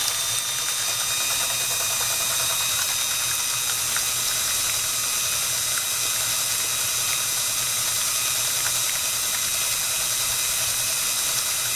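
DeWalt cordless drill with a whisk attachment running steadily, whipping eggs and liquid to a froth in a metal mixing bowl.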